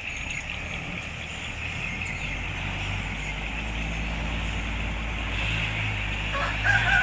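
An engine running steadily at low revs, a low hum that grows a little fuller about two seconds in. A rooster starts crowing near the end.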